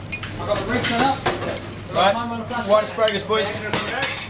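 Busy restaurant kitchen during plating: a metal spoon clinking against a small saucepan and china plates in a few sharp clicks, over a steady sizzle from the stoves and background voices of the cooks.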